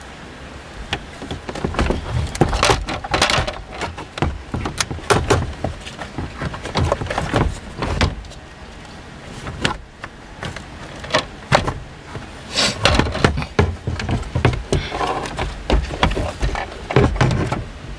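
Plastic instrument-cluster housing of a Toyota HiAce being pulled out of its dashboard opening: irregular clicks, knocks and rattles of hard plastic against the dash, in clusters with short lulls between.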